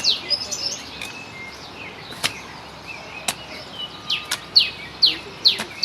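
A bird calling in runs of quick, falling whistled notes, about three a second, near the start and again in the last second or so. Two sharp knocks, about a second apart, fall in the middle.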